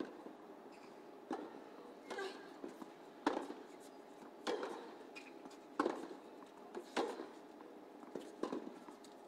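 A tennis rally on a hard court: the ball is struck by rackets and bounces on the court, a sharp pop about once a second.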